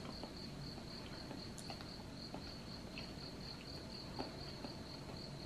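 Quiet, steady high-pitched insect chirping, pulsing evenly several times a second, with a few faint clicks from chewing.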